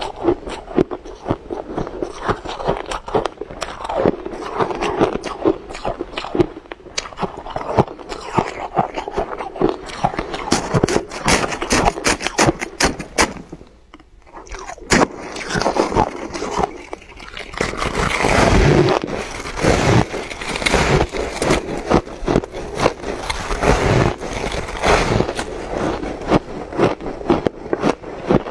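Close-miked crunching and chewing of crushed, powdery frost ice: dense, irregular crackles. There is a brief lull about halfway through, then louder crunching.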